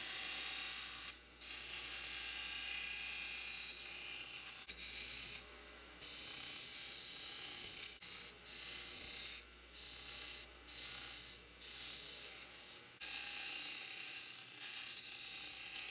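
Power tool grinding or cutting the steel of an old concrete saw blade, a steady hiss that breaks off and resumes abruptly several times.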